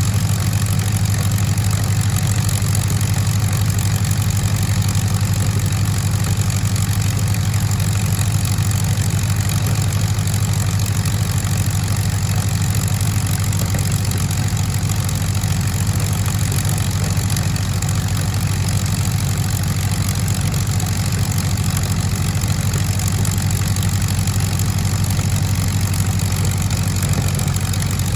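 De Havilland Mosquito's Merlin V12 piston engines idling steadily, a low even drone with no change in speed.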